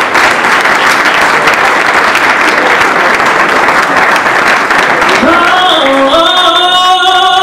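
Audience applauding steadily. About five seconds in, music begins over the clapping with a few held notes that step up and down.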